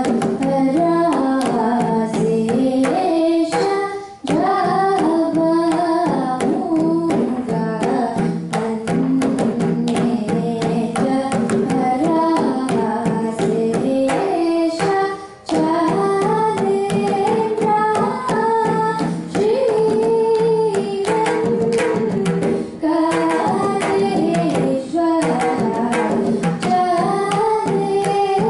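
Carnatic vocal music: a girl sings a melodic line over a steady drone, accompanied by a boy's mridangam strokes. The singing breaks off briefly about four seconds in and again about fifteen seconds in.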